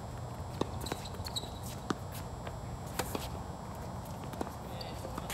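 Tennis ball struck by rackets and bouncing on a hard court during a doubles rally: sharp pops about a second apart over a steady low rumble.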